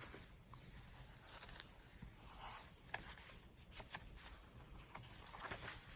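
Faint rustling and a few light ticks of paper pages being handled and turned in a thick handmade journal.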